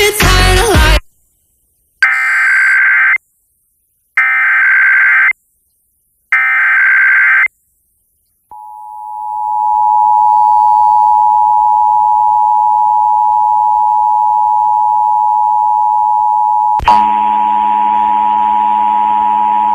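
Radio music cuts off about a second in. Three short bursts of Emergency Alert System SAME header data tones follow, with silent gaps between them. Then the EAS two-tone attention signal fades in and holds steady; near the end a click comes and a buzzing hum joins the tone.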